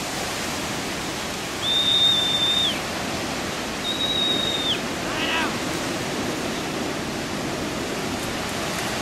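Two long, level whistles, each dipping in pitch at the end, over a steady rush of wind on the microphone; a short call follows about five seconds in.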